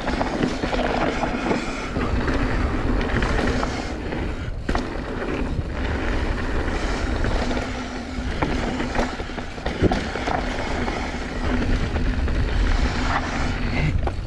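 Mountain bike riding fast down a rough dirt trail: continuous rattle and tyre noise over the ground with scattered knocks, under heavy wind rumble.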